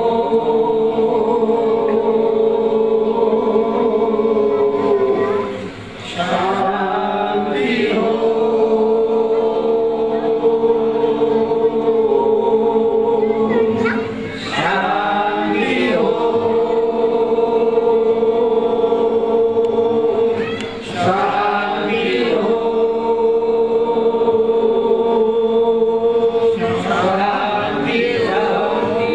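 A group of voices chanting a devotional chant in long held notes on one steady pitch, breaking briefly about every six to eight seconds before going on.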